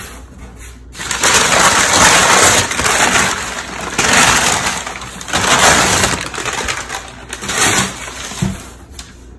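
Crumpled packing paper being pulled out of a large cardboard box, crackling and rustling loudly in several surges.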